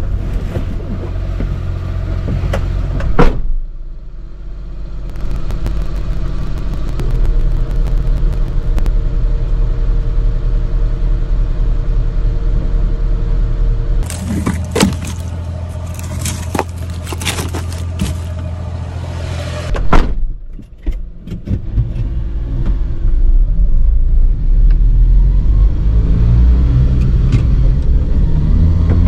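Suzuki Carry 4x4 mini truck driving: a steady low engine and road rumble. A sharp bang comes about three seconds in and another about two-thirds of the way through, and a stretch of hiss runs in between.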